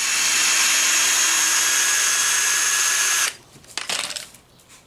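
Power drill running steadily for about three seconds, with a high whine, then cutting off abruptly, while the wooden form around a cured concrete step slab is taken apart. A few light knocks of wood follow.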